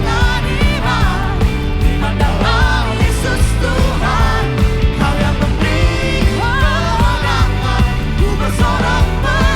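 Live worship band playing an upbeat rock-style song: a steady beat of drums and bass under a wavering, bending lead melody.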